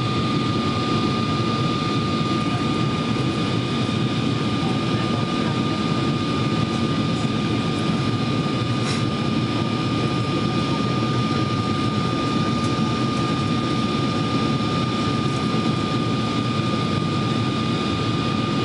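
Steady cabin noise inside a Boeing 777-200 descending toward landing: the rumble of airflow and jet engines, with a constant high whine above it.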